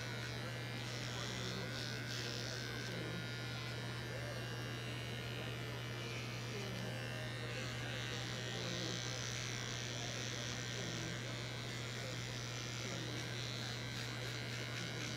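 Small electric pet clippers buzzing steadily as they trim the hair between a cat's paw pads.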